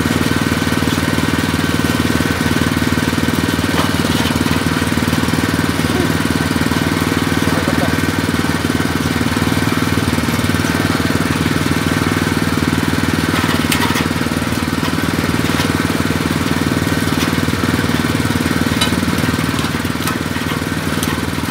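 Coconut shell peeling machine running steadily under load, an even mechanical drone with a rapid flutter from its drive, and a few faint clicks as shell is stripped.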